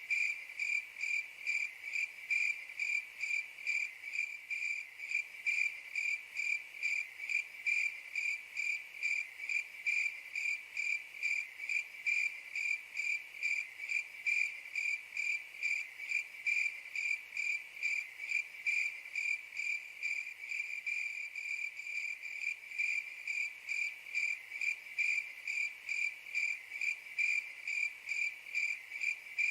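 Cricket chirping in a steady, even rhythm, about two to three high-pitched chirps a second.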